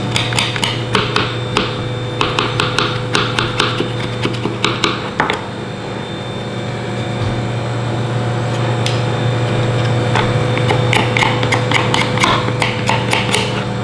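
Knife blade scraping the bared rib bones of a lamb rack clean, a quick run of sharp clicks and scrapes as the steel knocks along bone and onto a plastic cutting board, stopping for a few seconds in the middle before starting again. A steady low hum runs underneath.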